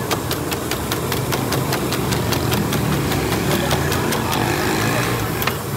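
A small engine idling steadily, with sharp, evenly spaced ticks about five times a second that thin out about halfway through.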